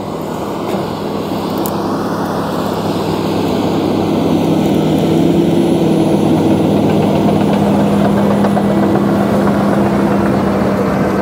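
Komatsu crawler bulldozer's diesel engine running steadily under load as it pushes a pile of coffee grounds, getting louder about four seconds in as the machine comes close.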